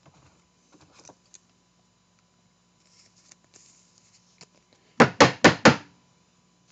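Faint rustling of trading cards being handled, then four quick, loud knocks about five seconds in.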